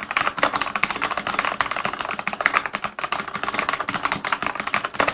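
Fast continuous typing on a mechanical keyboard with Cherry MX Brown switches: a dense clatter of keystrokes, many per second.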